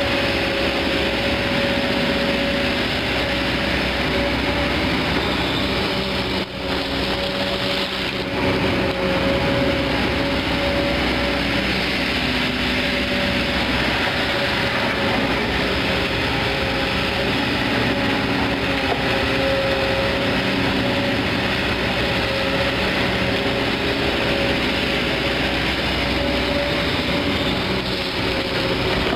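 Kobelco SK200 excavator's diesel engine running steadily under working load as the machine swings and digs, with a steady high tone held over the engine rumble.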